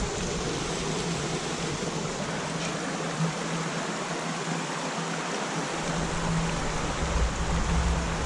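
Creek water rushing over rocks and small cascades, a steady even hiss. A low rumble joins in for the last couple of seconds.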